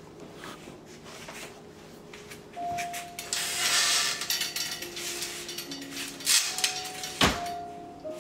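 Panels of a pet play pen being handled and moved. They rattle and scrape, with sharp knocks about six and seven seconds in.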